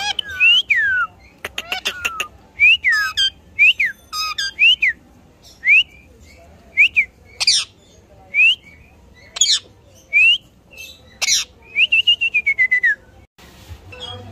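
Indian ringneck parrot whistling in short, quick gliding notes about once a second, broken by a few harsh squawks, with one longer falling whistle near the end.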